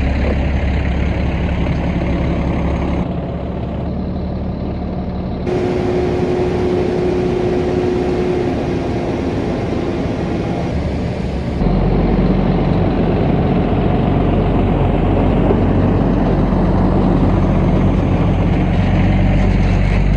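Heavy farm truck and machinery engines running steadily during grain unloading, heard in several short stretches that change suddenly, one with a steady whine partway through.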